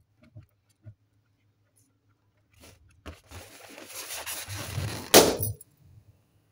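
Hands rubbing and squeezing an inflated latex balloon, a rising rubbery scrape for about two seconds, then the balloon bursts with a single sharp pop about five seconds in.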